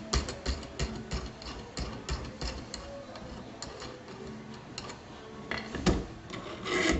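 Irregular small metal clicks and taps as nuts and washers are worked off the threaded rods of an HHO dry cell and a metal plate is handled. There is a louder knock about six seconds in as the plate comes off its bolts, and a brief scrape at the end.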